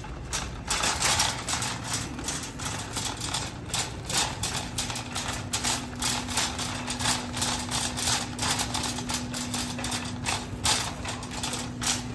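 Wire shopping cart pushed across a tiled store floor, its basket and wheels rattling and clicking irregularly several times a second. A steady low hum comes in about four seconds in.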